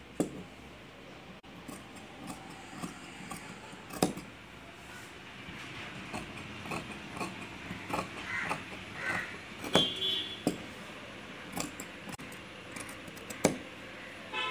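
Scissors cutting through dress fabric along a chalk line: an irregular run of blade snips and clicks, with a few louder snips.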